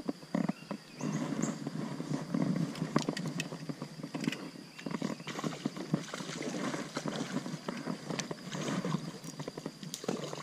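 Spinning reel being cranked in uneven spurts, with irregular clicks and rattles, while a hooked golden trout is fought on a bent rod and splashes at the surface.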